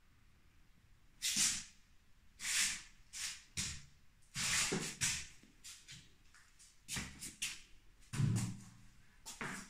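Footsteps scuffing on a dusty tiled floor: a series of about ten uneven, short scrapes and steps.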